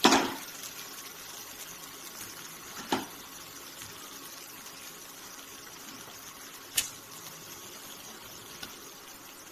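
Pre-fried carrot, drumstick and potato pieces dropped into masala frying in oil in a steel wok, with a loud clatter at the start, then steady sizzling. A metal spatula knocks against the wok twice, about 3 and 7 seconds in.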